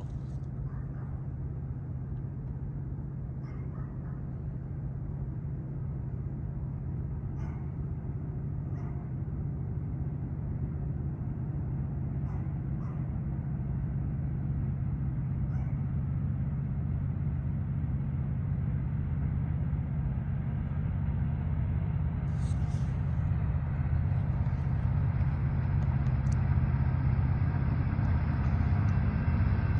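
Low, steady engine rumble of an approaching diesel locomotive, growing slowly louder as the train draws nearer at low speed.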